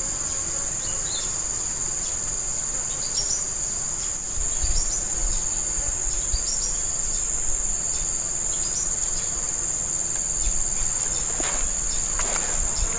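Steady shrill insect chorus, one high continuous whine, with short high chirps scattered over it.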